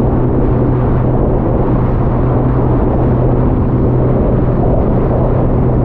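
Motorboat engine running steadily at speed: a constant low hum under a loud rushing noise.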